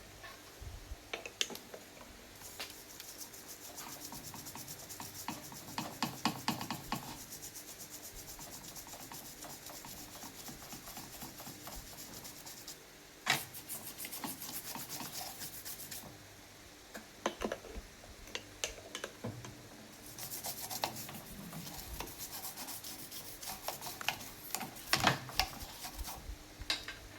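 Rapid back-and-forth scraping or rubbing strokes on a hard surface, in three long spells, with a few sharp knocks in between.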